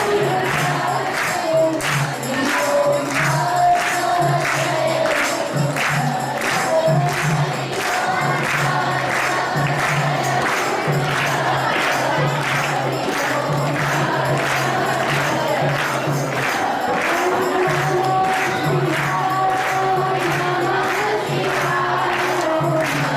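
Group of voices singing a devotional song to a steady beat of jingling hand percussion, about two strokes a second, over a pulsing low accompaniment.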